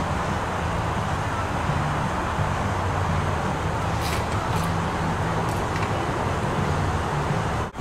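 Steady rushing background noise with a low hum under it, and a few faint ticks about halfway through; it cuts off abruptly just before the end.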